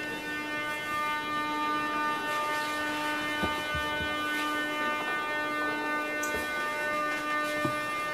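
Steady electrical hum from a standing 81-717.5/714.5 metro car's onboard equipment, one unchanging pitch with overtones. A few faint knocks sound over it.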